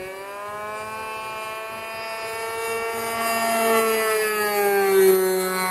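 Radio-controlled model aircraft's motor and propeller flying past: a steady pitched drone that grows louder, then drops in pitch as the plane goes by about five seconds in.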